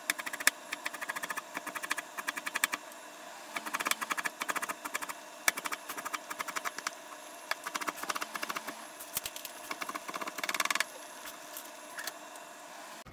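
Kitchen knife chopping carrot slices into thin strips on a plastic cutting board, in quick runs of sharp taps with short pauses between them.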